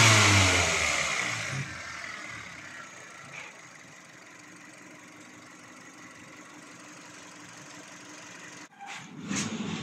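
Freshly installed Kia Cerato (Hyundai-built) petrol four-cylinder engine, its revs falling back from a blip in the first couple of seconds, then settling into a steady, even idle. It runs smoothly, with nothing wrong to be heard, and its air filter is not yet fitted.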